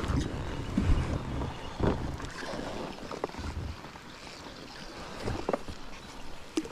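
Wind buffeting the microphone in gusts, with a few short knocks.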